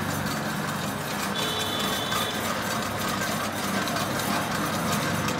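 Two commercial planetary food mixers running together at medium speed: a steady hum of motors and gear drives. A thin high tone comes in briefly about a second and a half in.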